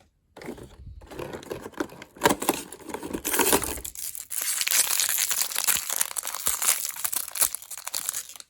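Toy packaging crinkling and tearing as a blind-packed figure is unwrapped by hand, with continuous crackling that grows louder and brighter in the second half and stops just before the end.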